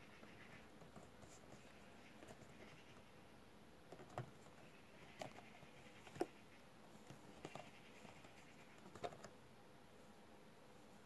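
Faint handling of a cardboard toy box with a clear plastic window: a few soft taps and knocks, the clearest about four to nine seconds in, as the box is turned over and set down. Otherwise near silence.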